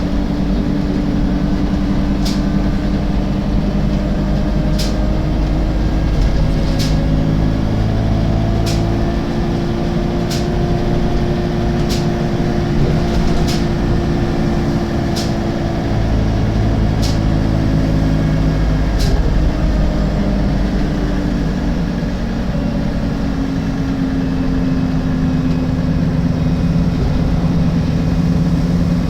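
Alexander Dennis Enviro 300 MAN bus running, its engine note rising in pitch and then easing back, with sharp clicks from the bus about every two seconds that stop about two thirds of the way through.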